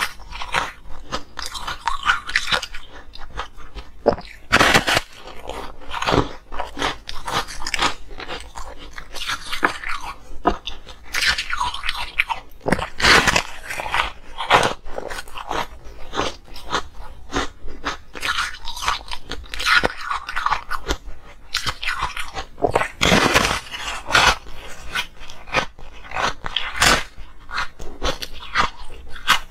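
A person biting and chewing a frozen block of coloured ice: a continuous run of irregular crunches, with a few louder bites as pieces break off.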